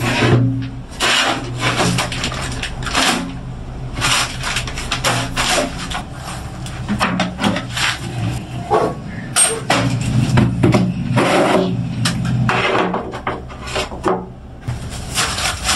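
Tools and other items being handled and put away on shelves: repeated irregular scraping, rubbing and knocking.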